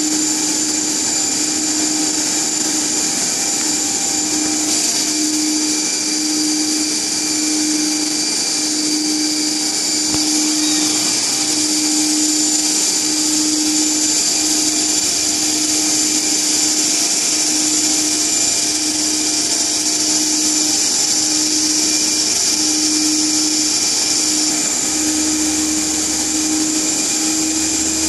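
Two motor-driven alternator sets running steadily, with a high-pitched whine and a low hum that swells and fades about once a second.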